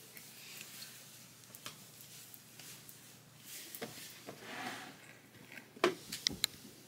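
Faint rustling and handling noises, with a few sharp clicks or knocks about six seconds in.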